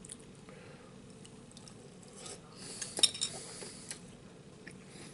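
Metal spoon clinking and scraping in a ceramic bowl of cereal and milk: a few light, scattered clinks, the sharpest about three seconds in.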